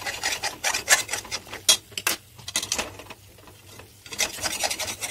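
A spoon stirring and scraping masala paste as it fries in a kadhai, in a run of short rasping strokes. The stirring pauses about three seconds in and starts again a second later.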